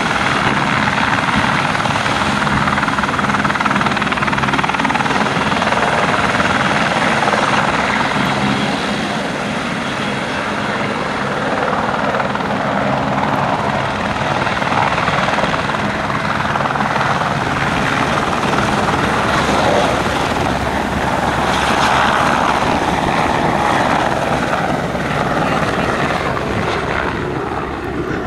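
Turbine helicopters running close by, with loud, steady rotor and engine noise. At the start a light helicopter is hovering just off the ground. The noise eases a little near the end.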